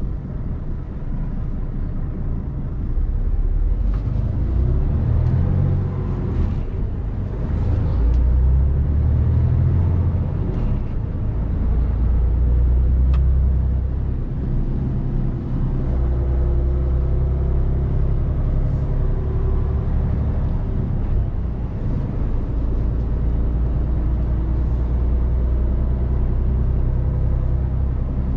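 Mercedes-Benz Actros 1851 truck's 12.8-litre straight-six diesel engine running steadily with a deep rumble while the truck drives. The engine note shifts in pitch a few times and dips briefly twice, as with gear changes.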